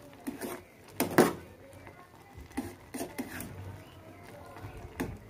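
Metal spatula knocking and scraping against a metal pot while stirring noodles in broth, in scattered clinks, the loudest about a second in.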